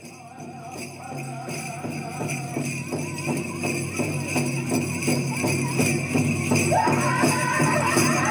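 Native American powwow song: a drum beating steadily at about two to three beats a second under chanting, with a high-pitched sung line coming in near the end. The sound fades in over the first couple of seconds.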